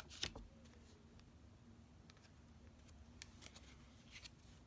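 Near silence: room tone with a faint steady hum and a few faint clicks and rustles of tarot cards being handled.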